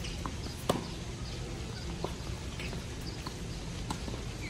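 Tennis ball struck by rackets during a doubles rally: four sharp pops, the first and loudest under a second in, the others about a second or so apart.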